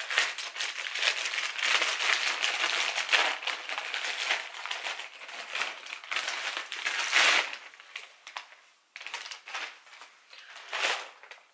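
White plastic courier mailer bag being torn open and crinkled by hand: dense, continuous plastic crackling for about seven seconds. After that it turns to sparser, intermittent rustles as the air-column bubble-wrapped package is pulled out of the bag.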